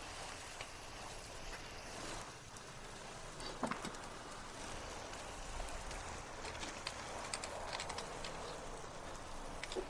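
Light handling clinks and knocks of a ceramic tandoor lid and a metal kebab-skewer rack, with one sharper knock about four seconds in, over a steady outdoor hiss.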